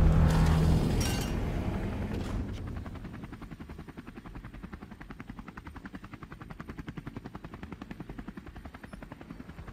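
Sound effect under an edited title card: a loud hit with a short low hum that fades over about two seconds, giving way to a steady, rapid chopping of about six pulses a second.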